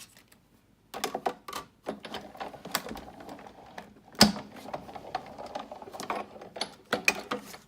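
Big Shot die-cutting machine being hand-cranked, with a cutting-plate sandwich holding a stitched circle framelit die and cardstock passing through its rollers. It makes a run of clicks and rattles, with one sharp knock about four seconds in.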